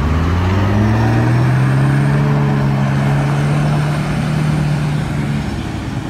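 Lada Niva and GAZ-69 off-road engines revving hard as the two launch side by side through deep mud in a drag race. The engine pitch climbs over the first second or so, holds at high revs, then eases off near the end.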